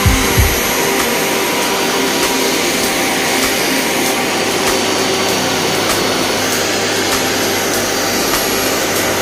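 Electric rotary car polisher with a foam buffing pad running steadily against painted bodywork: an even motor hum with a hiss of the pad on the paint. It is buffing out a coat of wax for the final finish.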